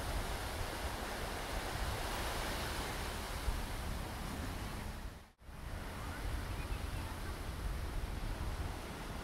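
Sea surf washing steadily against a rocky shore, with wind rumbling on the microphone. The sound cuts out abruptly for a moment about halfway through, then resumes the same.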